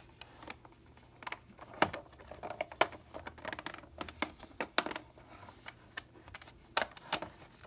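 Irregular small clicks and taps of plastic clock-case parts being handled and pressed into place during reassembly of a Copal flip clock, with one sharper click near the end.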